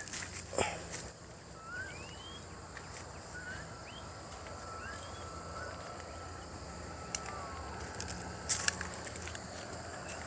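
Quiet farm outdoor ambience: several short rising chirps in the first half over a faint steady high tone, with brief rustling crunches about half a second in and again near the end.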